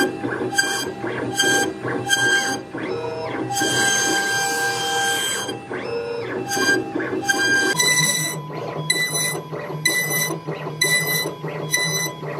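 CNC router spindle whining as it carves a relief pattern into an MDF panel, pulsing at about two beats a second. About two-thirds of the way through, the whine steps up to a higher pitch.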